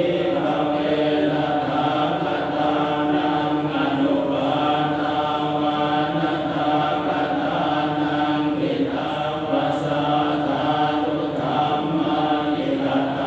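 Buddhist chanting: a voice intoning long held notes on a near-steady pitch, with brief breaks for breath every few seconds.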